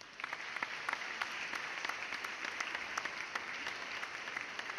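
Audience applauding: many hands clapping at once, swelling up at the start and then holding steady.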